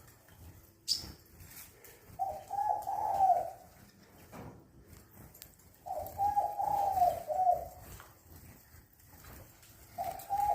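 A dove cooing: three low, wavering phrases of about a second and a half each, roughly four seconds apart. A single short, sharp high click about a second in.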